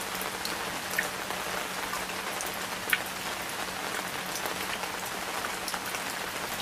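Steady rain falling on hard surfaces, with scattered sharper drips landing close by, the loudest about a second in and again about three seconds in. A faint low steady hum runs underneath.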